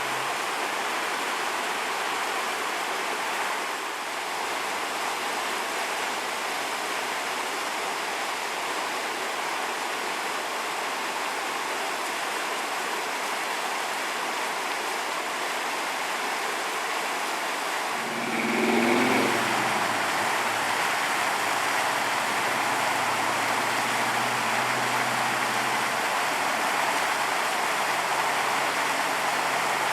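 Floodwater from the Cache La Poudre River rushing steadily over a road. About two-thirds of the way through, a brief louder sound with rising pitch comes in, and a low hum then stays under the rushing water.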